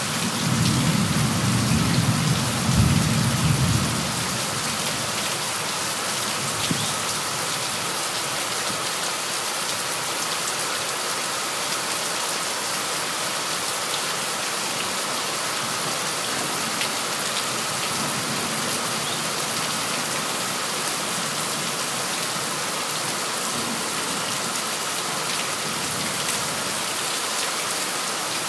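Heavy rain falling steadily, with a low rumble in the first few seconds.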